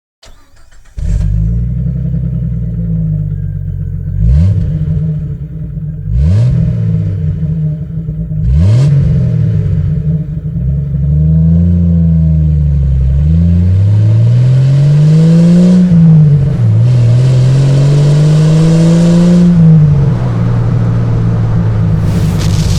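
Jeep Wrangler TJ engine running through a stainless catback exhaust. It starts about a second in, is blipped sharply three times, then is revved up and down over and over.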